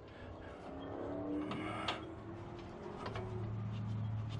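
Light ticks and knocks of a steel utility-bed frame being worked onto a zero-turn mower's mounts. Behind them is a faint wavering tone, then a low steady hum that starts about three seconds in.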